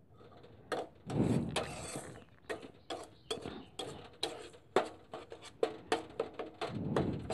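Metal spatula scraping and clinking against a metal pan while stirring dry, roasted mustard oil cake. Sharp clicks come about twice a second, with a longer gritty scrape about a second in and again near the end.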